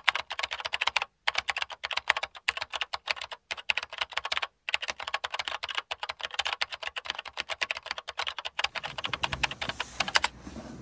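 Rapid keyboard typing: a dense stream of sharp key clicks with a few short pauses, stopping about ten seconds in.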